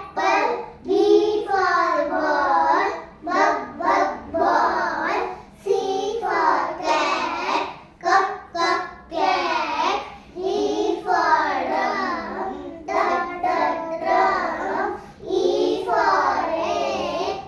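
Young kindergarten children singing a phonics chant, reciting letter sounds phrase after phrase in a sing-song rhythm.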